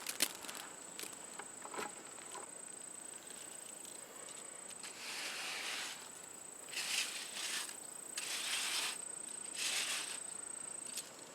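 Steady high-pitched drone of an insect, with four short rasping swishes, the first about five seconds in, and a sharp click right at the start.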